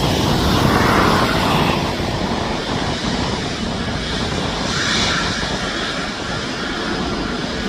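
Boeing 777-200's jet engines running, a steady broad rumble with hiss.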